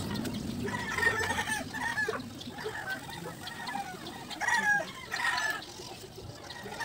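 Chickens calling: several crowing and clucking calls one after another, the loudest about a second in and again around five seconds in.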